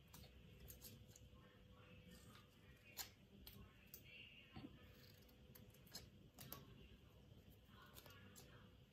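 Faint snips of scissors cutting paper: a few sharp clicks spread out, a second or more apart.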